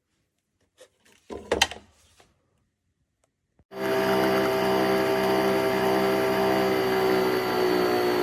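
A couple of short clacks, then about three and a half seconds in a Nespresso Vertuo Pop capsule coffee machine starts up and runs steadily with a motor whine. This is the capsule spinning in the machine's centrifugal brewing.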